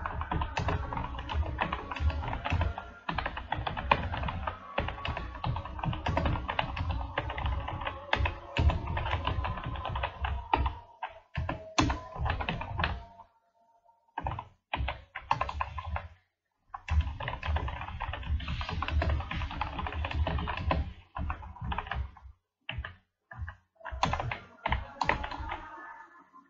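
Fast typing on a computer keyboard, in long runs of key strikes broken by short pauses, with music playing underneath.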